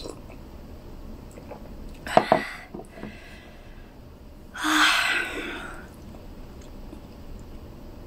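A woman lets out one loud, breathy rush of breath about halfway through, starting suddenly and fading over about a second. A short, sharp sound comes a couple of seconds before it.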